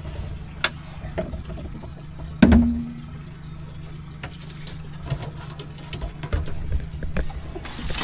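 Wire crab pot clinking and knocking against the esky and deck while mud crabs are emptied out of it, with one loud knock about two and a half seconds in and scattered lighter clicks later. A steady low hum runs underneath.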